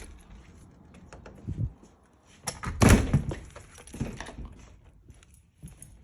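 A door being handled: a few knocks and clunks, with the loudest thud about three seconds in.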